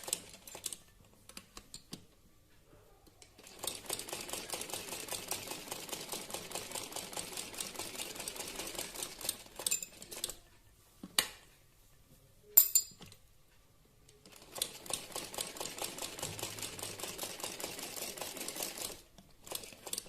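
Simple household sewing machine stitching fast in two runs of several seconds each, with a pause between them that holds a few sharp clicks and knocks as the presser foot is lifted and the fabric turned.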